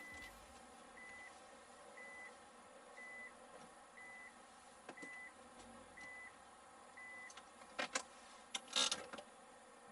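Faint electronic beeping: one short high beep about every second, eight in a row, then a few clicks and rustles near the end.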